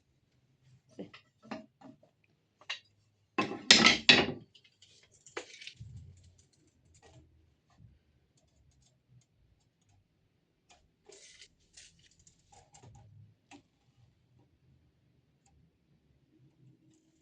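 Workshop handling sounds: scattered light clicks and knocks, with a louder quick clatter of several knocks about three and a half seconds in and a softer rattle near the middle.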